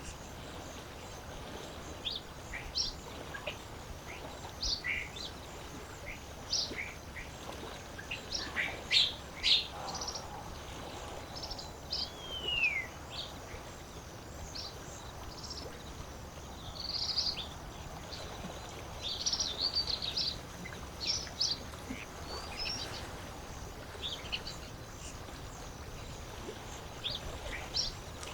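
Several small birds chirping and calling in short, scattered notes, with a falling whistle and quick chattering runs, over a steady background hiss of lake water.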